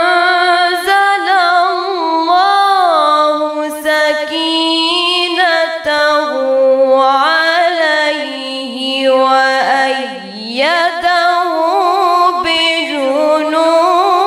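A girl's solo unaccompanied voice reciting the Quran in melodic tajweed style, singing long drawn-out phrases with ornamented turns of pitch. About ten seconds in the voice dips briefly, then slides up into the next phrase.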